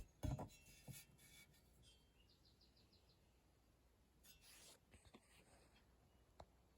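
Near silence: room tone with faint handling noises, a short knock and rustle just after the start, a soft rustle past the middle and a small click near the end, with a faint quick run of high ticks about two seconds in.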